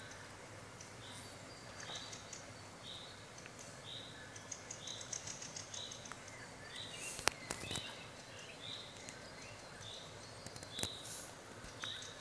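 A bird repeating a short high call over and over, roughly once or twice a second, with fainter chirping of other small birds and a couple of sharp clicks.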